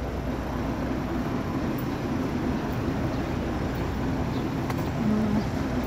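Steady traffic noise on a city street, with vehicles running on the road alongside.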